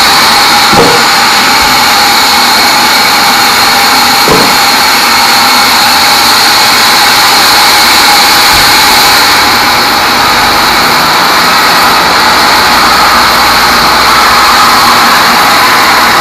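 Band sawmill running loudly and steadily, its blade sawing through teak. There are two brief knocks, about a second in and about four seconds in.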